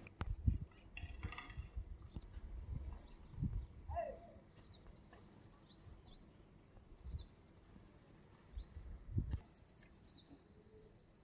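Small birds chirping several times: quick high twittering runs, each ending in a few short downward-sweeping notes. A few faint low bumps come underneath.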